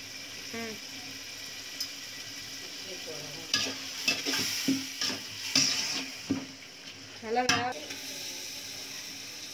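Onions and tomatoes frying with salt in a metal pot, a steady sizzle, while a metal ladle scrapes and stirs against the pot in several sharp strokes.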